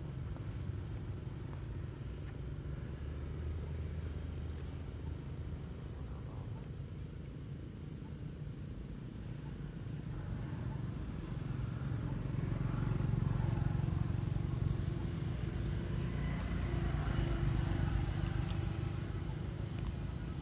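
Steady low rumble of outdoor background noise, growing louder about twelve seconds in.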